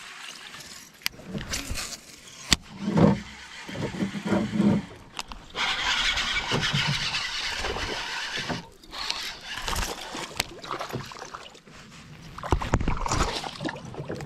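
A buzzbait being reeled in on a baitcasting reel, its blade churning and sputtering across the water, with the reel cranking. Near the end a bass strikes it and splashes at the surface.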